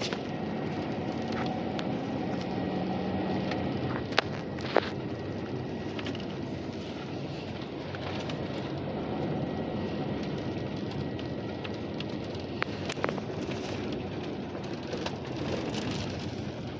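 Bus running along a street, heard from inside the cabin: a steady engine hum and road noise, with a few sharp rattles or knocks, two close together about a quarter of the way in and a few more past the middle.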